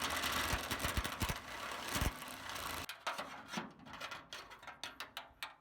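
Power drill boring out a hole in the metal of a replacement van door-latch mechanism, running for about three seconds and then stopping. It is followed by a string of light, irregular clicks.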